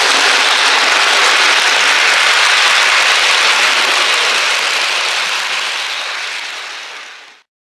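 OO gauge model train running past close by: a steady noise of its wheels on the track, fading away about five seconds in and cutting off just before the end.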